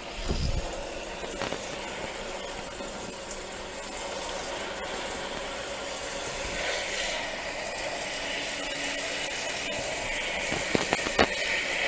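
Water running into the wash tub of a twin-tub camping washing machine, filling it for the rinse, with a steady splashing hiss that grows slowly louder. A few short clicks near the end.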